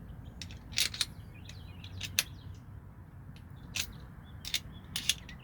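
Milwaukee 13-in-1 multi-bit screwdriver being handled: a scattering of sharp plastic-and-metal clicks as its bits and shaft are worked and snapped into place.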